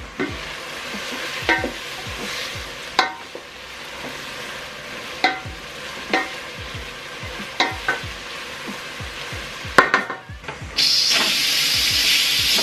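Wooden spoon stirring a large aluminium pot over a simmer, knocking against the pot every second or two. About eleven seconds in, an electric pressure cooker starts venting built-up pressure as a loud, steady hiss of steam.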